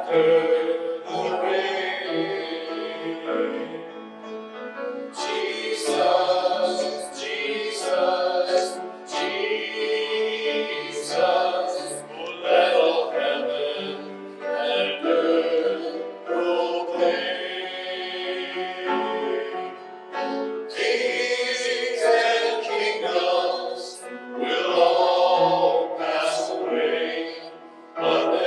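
Worship song: singers with musical accompaniment.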